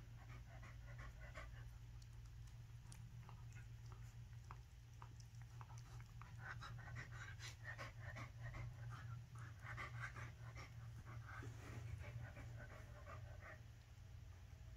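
Shih Tzu and corgi mix dog panting faintly as it bites and mouths a plush shark toy, in irregular bouts that are busiest in the second half.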